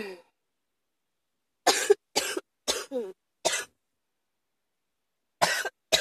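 A fit of coughing: four sharp coughs in quick succession, about half a second apart, starting a second and a half in, then two more near the end.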